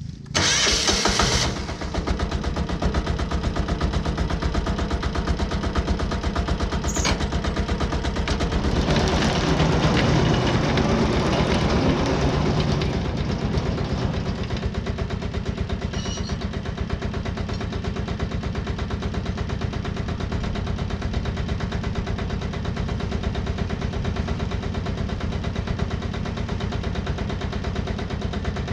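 Wood-Mizer LT15 sawmill engine starting with a brief burst about half a second in, then running steadily with a rapid even pulse. It grows louder and fuller for a few seconds near the middle before settling back to a steady run.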